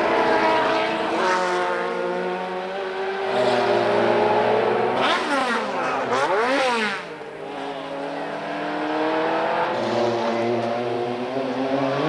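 Group C sports-prototype race cars accelerating out of a corner one after another, several engines heard at once. Their engine notes rise and fall as they pass, with one sharp up-and-down sweep of pitch about halfway through as a car goes by close.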